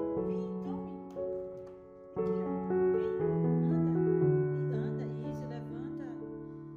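Slow, gentle piano background music, sustained chords changing about once a second.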